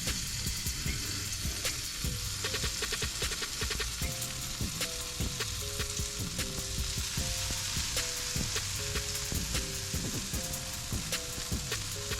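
Jerk chicken leg quarters sizzling steadily on the hot grates of a gravity-fed charcoal grill, with a run of light clicks about two to three seconds in. A quiet background melody runs underneath from about four seconds on.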